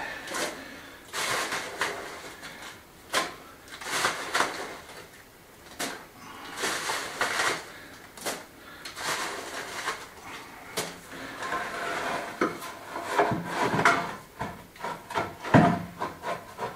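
Hand tools scraping and scooping gritty sand-and-gravel bedding, with stone knocking against stone, as natural stone flags are bedded and levelled. There is a louder thump near the end as a flagstone is set down.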